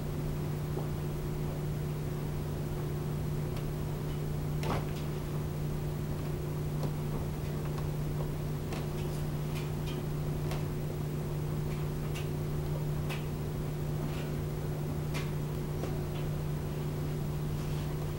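Scattered light clicks and taps of hands and tools working on a Vespa's plastic body panels, over a steady low hum.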